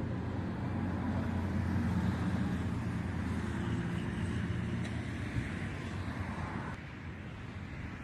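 A motor vehicle's engine hum, steady at first and fading after about five seconds, over a background hiss that drops off suddenly near the end.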